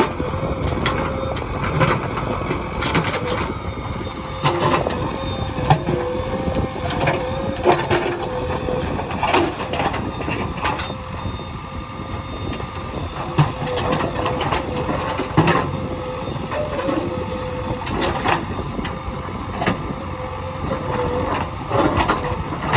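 JCB 3DX backhoe loader working, its engine running steadily with a constant tone, and repeated sharp knocks and scrapes at irregular intervals as the bucket digs into hard stone.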